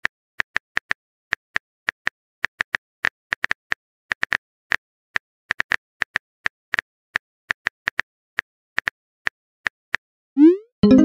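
Phone keyboard typing sound effect from a texting-story app: short, irregular taps, about three a second. Near the end comes a short rising swoosh, then a strummed guitar tune starts.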